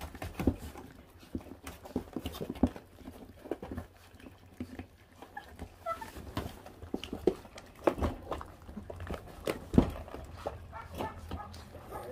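A litter of month-old puppies tearing and chewing raw meat and bone, with irregular wet chewing clicks and knocks, the loudest about ten seconds in, and a few short high puppy cries.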